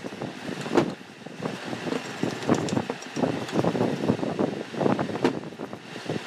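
A hand brush scrubbing the rotor shaft and end housing of an old electric water pump motor: uneven rough scrubbing strokes, with a sharp click about a second in and another near the end.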